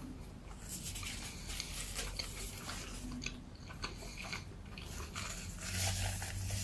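A paper burger wrapper crinkles as a mushroom Swiss burger is handled, then a bite goes into its toasted bun near the end.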